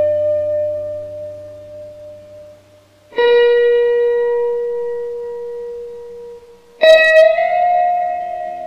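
Guitar notes struck and left to ring out: a held note fading away, a new note struck about three seconds in, and a brighter chord struck near seven seconds, each dying away slowly.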